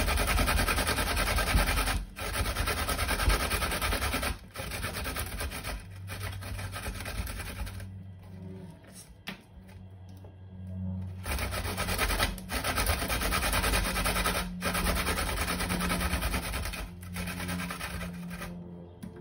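Unpeeled garlic cloves being grated on a stainless-steel box grater: a scraping rasp in runs of strokes, broken by short pauses every couple of seconds, with a quieter stretch about halfway through.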